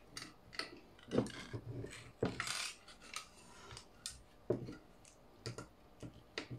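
Irregular small clicks, clinks and knocks of metal and plastic parts as a Seagate 8 TB hard drive is taken out of its external enclosure, with a few sharper knocks about one, two and four and a half seconds in.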